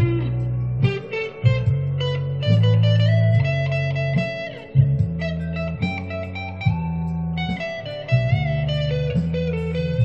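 Electric guitar improvising a blues lead in B: single-note lines with several string bends, over a low, steady bass part.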